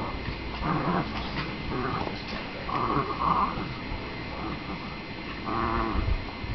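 Two small dogs play-fighting, with low play growls and several short high whining calls, the clearest about three seconds in and again near the end.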